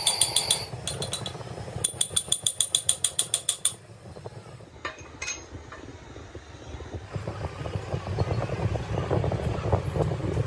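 Rapid metallic clicking with a ringing tone, about six or seven clicks a second, in a short run and then a longer run of nearly two seconds. After that come a few scattered clicks, then a low, steady workshop rumble.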